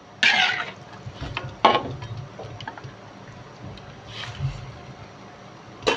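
Spatula stirring chicken pieces in broth in an aluminium wok: the liquid sloshes, and the spatula scrapes and knocks against the pan a few times, sharpest about a second and a half in and again near the end.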